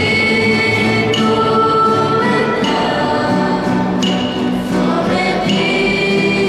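Youth church choir singing a slow song in Spanish, voices together on long held notes that change every second or so.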